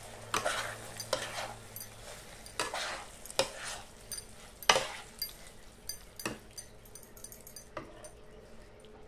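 Flat metal spatula stirring chili paneer in a non-stick kadai: irregular scrapes and taps against the pan, the loudest a little before the middle, with the hot sauce sizzling faintly in the first couple of seconds.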